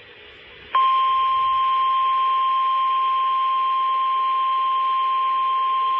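NOAA Weather Radio 1050 Hz warning alert tone: a single loud steady tone that starts suddenly about a second in, heard over the receiver's hiss, announcing the severe thunderstorm warning that follows.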